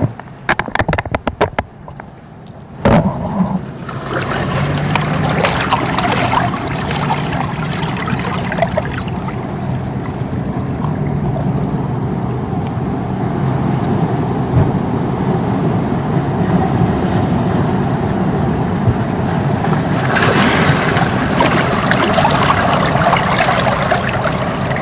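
Seawater sloshing and gurgling in a rocky tide pool, heard with the microphone at the waterline. A surge of water washes in louder near the end. A quick run of sharp clicks and knocks comes in the first few seconds.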